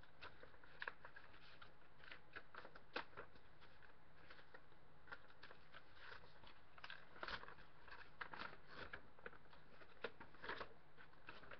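A folded paper card checklist being unfolded by hand: faint, irregular crinkling and rustling of the paper, busier in the second half.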